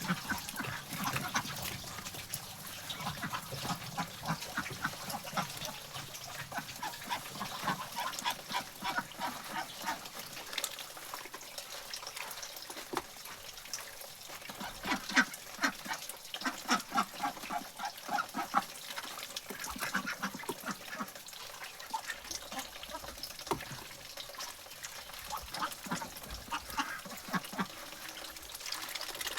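Flock of domestic ducks quacking, with many short calls coming in quick, overlapping runs.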